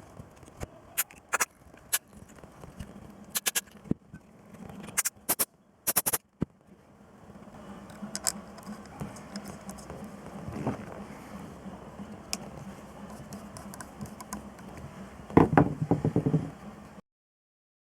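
Irregular sharp clicks and light knocks of hard objects, with a louder clatter about fifteen seconds in, then an abrupt cut to silence.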